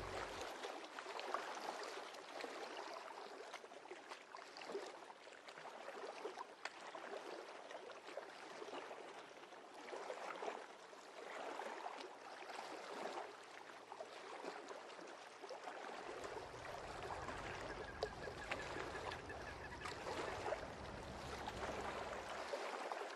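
Waterbirds, ducks among them, calling on and around a reed-fringed lake, in short scattered calls over a faint background hiss. A low rumble joins in about two-thirds of the way through and stops shortly before the end.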